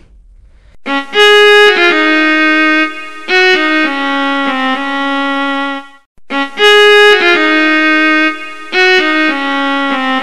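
Background music: a short melody of sustained notes starting about a second in, breaking off briefly about six seconds in, then played over again.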